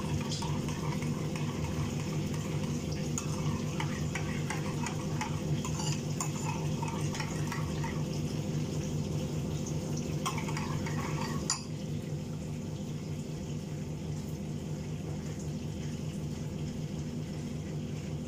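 Metal spoon stirring and scraping in a frying pan on a gas burner, with scattered small clinks, over a steady low hum. About two-thirds of the way through there is one sharp click, and the stirring sounds stop, leaving only the hum.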